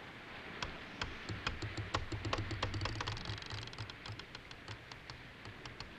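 Feather quill pen scratching on paper as someone writes: a quiet run of small, irregular scratches and ticks.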